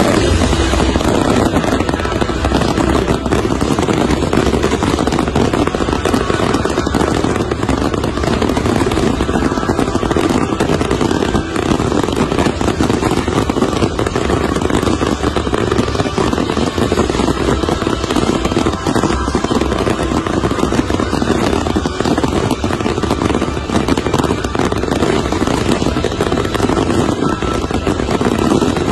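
A dense, continuous fireworks barrage: many rapid crackles and pops merge into a steady, loud rush, with no single big boom standing out.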